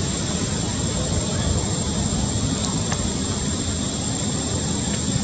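A steady low rumbling noise with no breaks, and a thin steady high tone above it.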